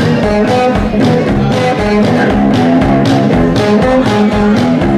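Live rock band playing a song's instrumental intro, drums keeping a steady beat under sustained pitched notes.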